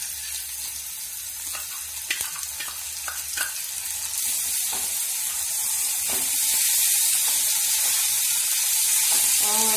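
Chana dal and chopped onions frying in hot oil in a metal kadai, sizzling, with a metal spoon clicking and scraping against the pan as it is stirred. The sizzle grows louder about halfway through.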